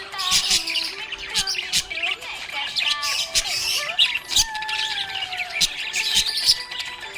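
A group of small pet parrots chirping and squawking in a busy, continuous chatter, with sharp clicks and a few whistled notes, one of them sliding down in pitch about midway.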